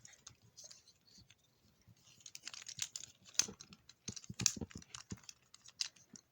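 Small plastic fidget toys being handled, giving irregular sharp clicks and clacks that come thick and fast from about two seconds in.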